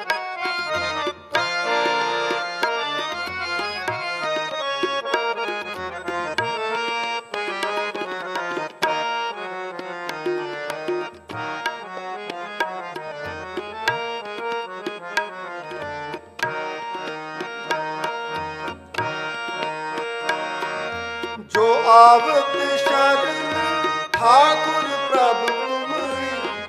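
Harmonium and tabla playing an instrumental interlude of a Sikh kirtan shabad: held reed chords over a steady tabla rhythm with a deep bass stroke about every one and a half to two seconds. Near the end a male voice comes in with wavering, gliding notes.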